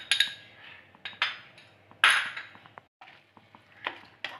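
Wooden spatula stirring a thick shallot mixture in a pan, knocking and clinking against the pan in a series of short sharp strokes, with a louder scrape about two seconds in.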